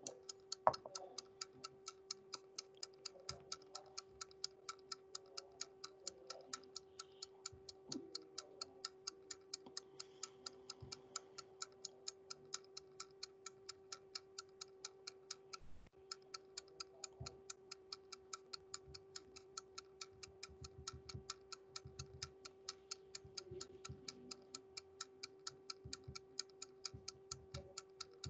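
Countdown timer's clock-ticking sound running through a timed exercise: an even, rapid ticking, faint, over a steady low hum that drops out for a moment about halfway through.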